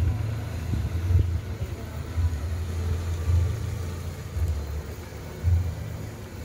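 Toyota Corolla 'big body' sedan idling: a low engine rumble that swells and dips unevenly.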